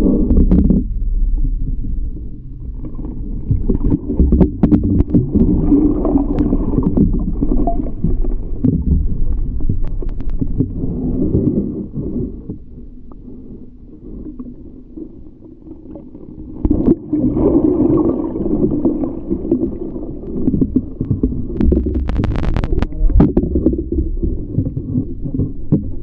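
Muffled underwater rumble and moving water heard through a submerged GoPro's waterproof housing, with scattered sharp knocks and clicks. It drops quieter for a few seconds midway, then comes back with a knock, and a cluster of clicks follows near the end.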